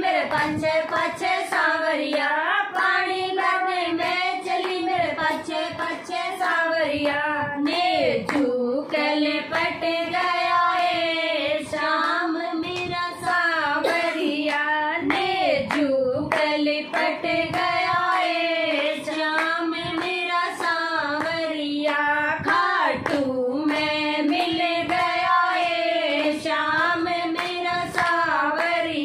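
Women singing a Hindi devotional bhajan to Khatu Shyam together, keeping time with steady hand claps.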